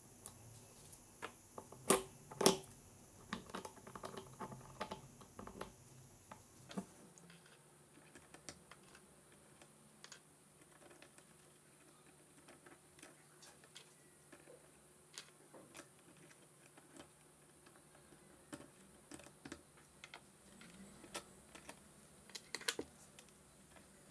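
Small irregular clicks and taps of plastic and metal parts as a cordless drill's plastic gearbox housing is handled and worked on by hand, the two loudest clicks about two seconds in.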